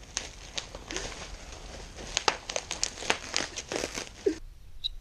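Clear plastic wrapping crinkling and crackling in irregular bursts as it is pulled off a new bicycle frame. It stops about four seconds in.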